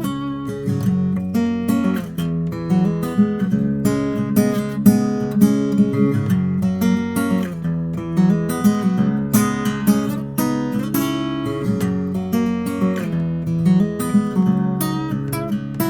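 Martin 00-28 Modern Deluxe acoustic guitar played solo, tuned a half step down, in a continuous flow of quick notes and chords. It is heard through a microphone with no EQ or processing.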